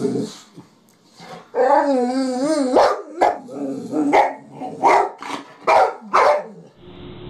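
Excited dog giving a drawn-out wavering whine, then a string of about seven short, sharp barks.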